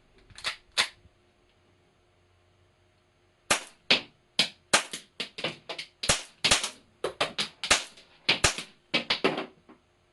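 Tanio Koba GM7 model pistol going off in sharp cracks: two shots in the first second, then after a pause of about three seconds a fast, uneven string of around twenty.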